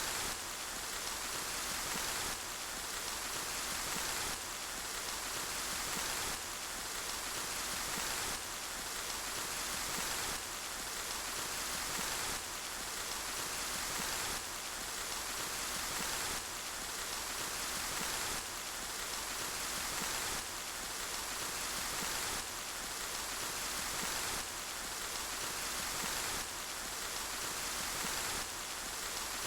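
Steady rain noise, hissing and even, with no single drops standing out. It repeats as a short loop about every two seconds, with a slight jump in level at each repeat.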